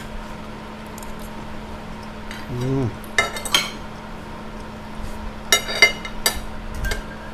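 Metal spoon clinking and scraping against a plate while eating: a few sharp, ringing clinks about three seconds in and again around five to six seconds in, over a faint steady hum.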